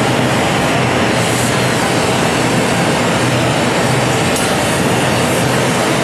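Steady roaring hiss of gas torches playing flames on hot glass, with a low steady hum underneath.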